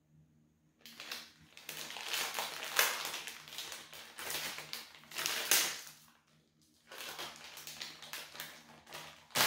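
Crinkly plastic wrapping being handled and opened by hand: a run of crackling rustles starting about a second in, a short break near six seconds, then more crackling.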